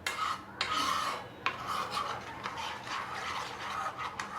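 A utensil scraping and stirring thick, milky besan sudka against the bottom and sides of a cooking pan, in repeated rasping strokes a few times a second.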